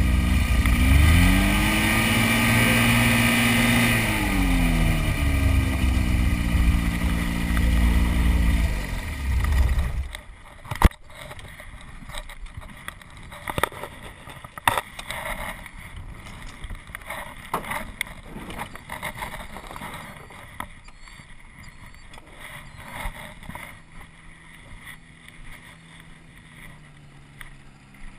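Ultralight aircraft engine running close by, revving up for a few seconds and dropping back, then shut off abruptly about ten seconds in. Afterwards there are scattered knocks and clicks of handling, and near the end another ultralight's engine comes up faintly.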